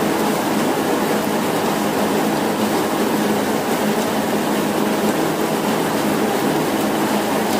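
Steady running noise of a fishing trawler's deck machinery with a constant low hum, mixed with the continuous wet rush of fish sliding out of the trawl net into the hopper.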